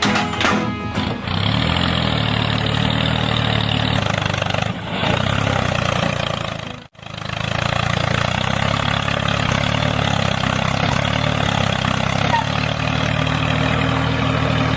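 Engine running steadily at an even pace. It cuts out abruptly for a moment about seven seconds in, then carries on as before.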